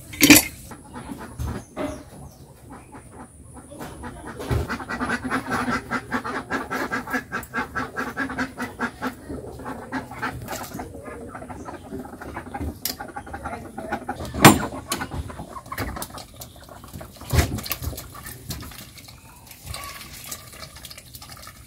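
Domestic ducks quacking in a rapid run of calls for several seconds in the first half, then quieter calling, with a few sharp knocks.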